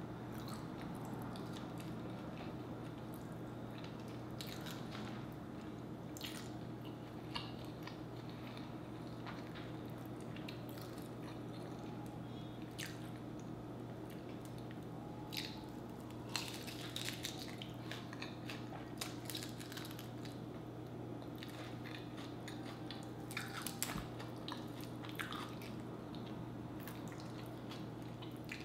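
Close eating sounds of a person biting into and chewing sauced fried chicken wings, with scattered wet mouth clicks and smacks. A steady low hum runs underneath.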